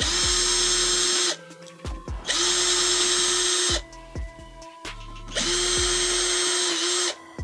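Cordless drill-driver running in three runs of about a second and a half each. Each run is a steady whine that winds up quickly at the start as it backs out Allen bolts from the intake manifold.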